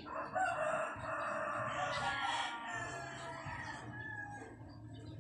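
A rooster crowing once: one long call of about two and a half seconds that rises and then falls.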